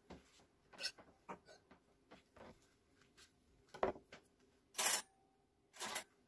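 Tableware handled off-picture: scattered light clicks and knocks, then a few louder short clatters and scrapes in the last two seconds.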